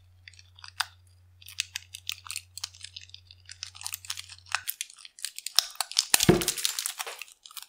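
Small scissors snipping through the rubber of a mini water balloon: short sharp crackling clicks, then a louder, denser burst of crackling with a low thump about six seconds in.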